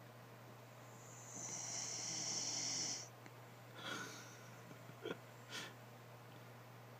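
A pet's snore-like snorting breath: one long rasping hiss of about two seconds starting about a second in, followed by a few shorter snorts.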